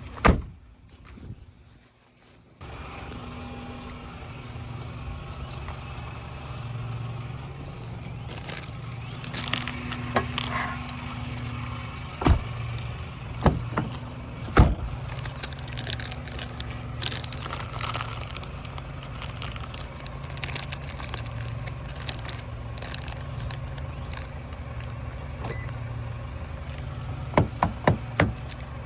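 Car engine idling steadily, with a few sharp clicks and knocks over it and a quick run of clicks near the end.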